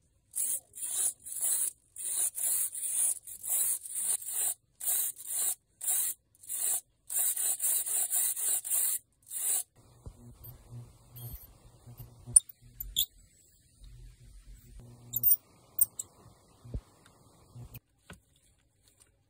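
A hand tool rasping against plastic in about fourteen uneven strokes, each around half a second long. After about ten seconds the strokes stop, leaving a faint low hum broken by a few sharp clicks.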